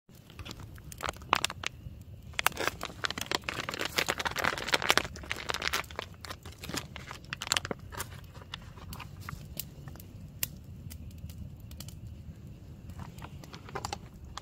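Crinkling and tearing of a foil-laminate MRE pouch as it is torn open and handled: a run of sharp crackles, busiest in the first half.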